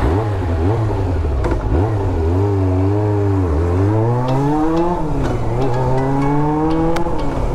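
Honda CB400 Super Four's inline-four engine running under way as the bike rides off. Its pitch rises and falls several times, dips sharply about halfway through, then climbs slowly toward the end.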